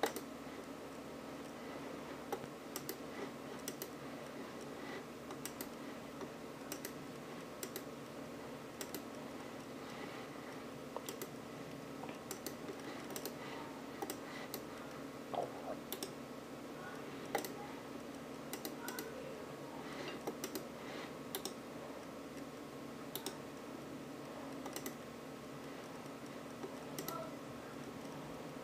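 Irregular sharp clicks of a wired computer mouse's buttons, a few seconds apart to about two a second, over a steady hum.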